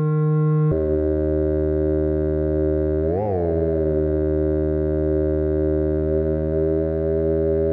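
AliExpress theremin playing one of its built-in synth voices with light reverb. A held note switches to a deeper, fuller tone under a second in, swoops briefly up and back down about three seconds in, then holds steady.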